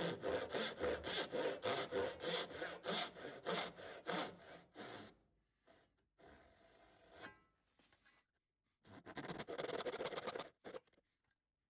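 Hand saw cutting dovetail tails in an ash board, in quick back-and-forth strokes about three a second. The strokes stop for a few seconds, then start again in a second short run that stops shortly before the end.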